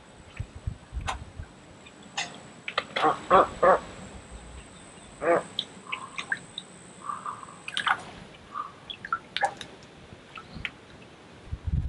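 Bird calls in a swamp: a quick run of short, harsh calls about three seconds in and another single call about two seconds later, with scattered small clicks and a faint steady high whine that stops about eight seconds in.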